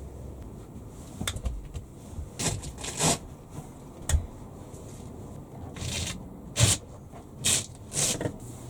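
A string of short scraping and rustling handling noises, about eight in all, each lasting a fraction of a second, over a low steady rumble.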